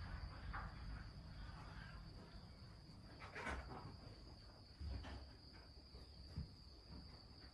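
A faint, steady high-pitched whine over a low rumble, with three soft knocks about a second and a half apart.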